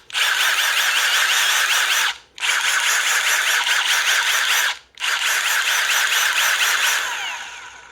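Milwaukee 2853-20 Gen 3 cordless impact driver spinning with no load in three bursts of about two seconds each, with a high-pitched motor whine. The first two stop abruptly. The last winds down gradually over about a second instead of stopping, the electric brake failing once the motor has warmed up, which the owner takes as typical of this model.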